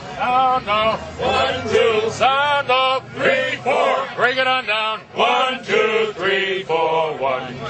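Men's voices chanting a military-style marching cadence in a steady sing-song rhythm.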